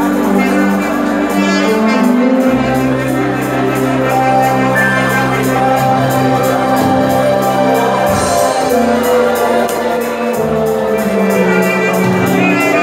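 Live church band music with a steady beat, sustained low bass notes and a saxophone carrying the melody.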